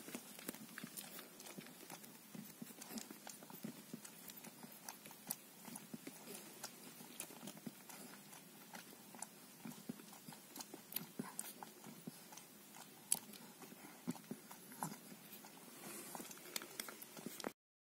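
Havanese puppies suckling from their mother: faint, irregular wet smacking and sucking clicks. The sound cuts off abruptly near the end.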